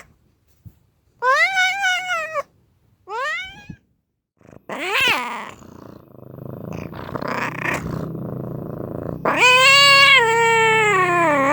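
Angry domestic cat yowling: several drawn-out meows, then a rough growl. Near the end a long, loud, wavering yowl begins.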